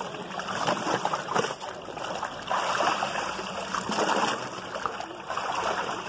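Wet hides being pulled and turned by hand in a stone vat of muddy liquid, the liquid sloshing and splashing in several irregular surges.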